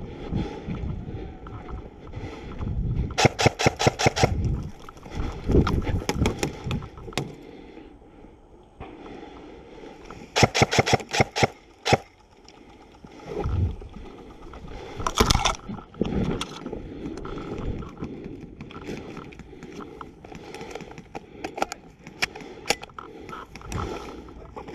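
Airsoft guns firing rapid full-auto bursts, three of them: about a second long a few seconds in, a longer one about ten seconds in, and a short one about fifteen seconds in. Between the bursts, tall dry grass rustles and brushes against the player as he moves and goes prone.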